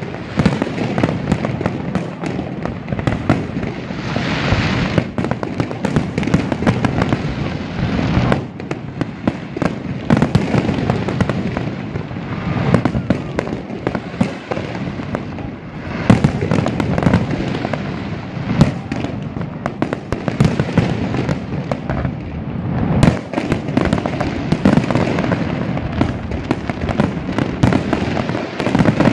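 A fireworks display: a dense, continuous barrage of shell bursts, sharp crackling and deep booms overlapping one another.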